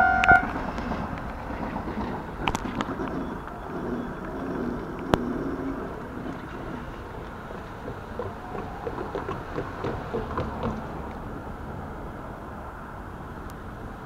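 Keikyu electric commuter trains running on the tracks: a low rumble that slowly fades, with a few sharp clicks and a stretch of rattling from the wheels on the rails.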